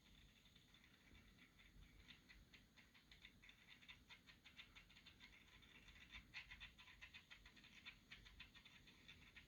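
Faint, irregular light clicks and rustling from cardboard figure boxes and plastic packaging being handled.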